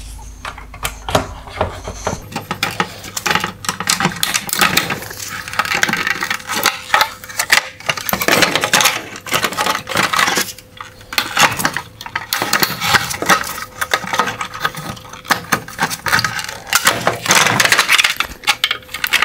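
Plastic and metal parts of a 2021 Nissan Rogue LED headlight clicking and clattering against each other and the workbench as wire harness clips are unclipped and the reflector pieces are pulled apart and set down. The rattling comes in irregular bursts, busiest near the middle and again near the end.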